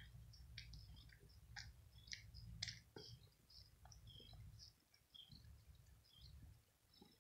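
Faint, irregular wet clicks of a kitten's tongue licking its paw and face while grooming.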